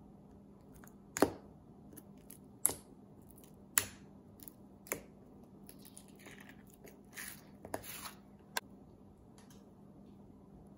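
Fingers pressing and poking clear slime packed with small plastic beads in a plastic tub, giving sharp clicks about a second apart, the first the loudest. Softer squishy crackles come between about six and eight seconds in.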